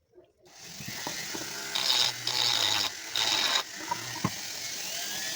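A small power tool starts up and runs steadily, with two louder, harsher bursts about two and three seconds in.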